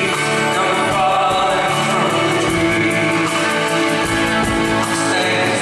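Live band music with acoustic guitars and a singing voice, picked up in the concert hall.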